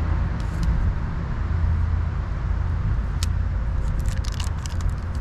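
Plastic packaging crackling and clicking as it is cut and pulled off a Zebco rod-and-reel combo, with a few single clicks and a burst of crackling near the end, over a steady low rumble.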